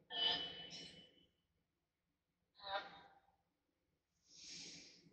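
A few short vocal sounds from people in a small room, then a breathy exhale near the end.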